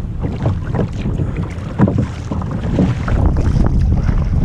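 Choppy river water splashing around a kayak, with wind buffeting the microphone as a low rumble. One louder splash comes just under two seconds in.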